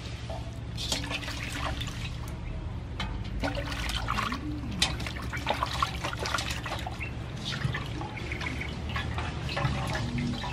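Water sloshing and splashing in a steel basin as a whole plucked chicken is rubbed and washed by hand, in irregular splashes. Near the end the chicken is lifted out and water runs off it back into the basin.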